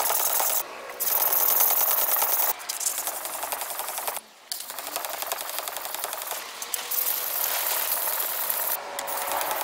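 Steel blade of a large gyuto kitchen knife scraping back and forth on wet whetstones, first a #400 stone and then a #1000 stone, in quick rhythmic strokes. The sound drops out briefly a few times, about half a second in and again around four seconds in.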